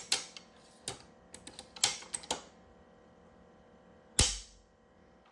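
Weatherby Vanguard bolt-action rifle being worked: a quick run of sharp metallic clicks as the bolt is put in and cycled, then one loudest snap about four seconds in as the newly fitted Timney 611 trigger is dry-fired and the firing pin falls.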